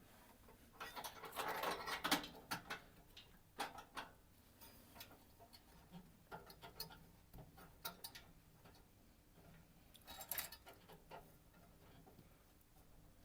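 Faint clicks, taps and scraping of metal parts being handled as a new glow igniter is pushed into its sleeve in a pellet stove, busiest between one and two and a half seconds in, with scattered ticks after and another short scrape around ten seconds in.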